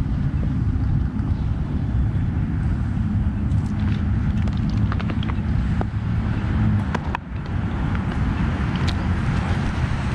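Steady low rumble of outdoor background noise, with a few light clicks and taps scattered through the middle.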